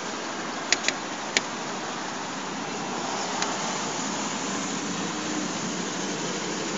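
A few sharp clicks in the first second and a half, and one fainter click later, from a handheld window-tint meter being set up and calibrated, over a steady hiss of vehicle and street noise.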